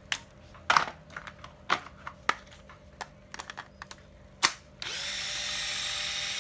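Ryobi 7.2 V cordless drill: a string of sharp plastic clicks and knocks as a battery pack is pulled out and slid into the handle, then about five seconds in the motor starts and runs steadily on the freshly fitted battery, a test of whether that pack still holds charge.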